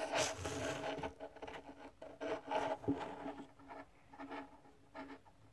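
Small plastic toy car pushed by hand across a wooden tabletop: its wheels roll and scrape in uneven spurts, louder in the first couple of seconds and fading toward the end.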